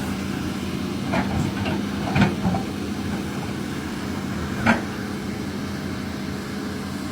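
Amphibious excavator's diesel engine running steadily, with a few short metallic clanks, about one, two and four and a half seconds in.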